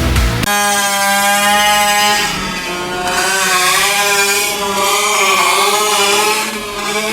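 Taylor 50 GT gas engine of a large-scale RC monster truck running at high revs, holding a steady pitch that wavers up and down in the middle. Rock music cuts off about half a second in.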